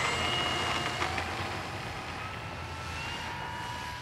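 Electric motor and propeller of an FMS P-51 Mustang RC warbird whining in flight: a steady whine of several pitched tones that drift slightly in pitch, growing a little fainter toward the end.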